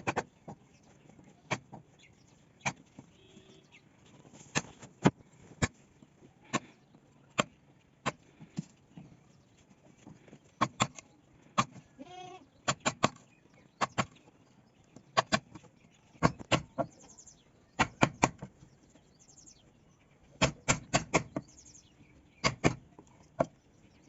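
Hand tool strikes on wood: sharp knocks, some single and some in quick runs of two to four, at an uneven pace, typical of a hammer or mallet tapping while cutting or fitting a joint.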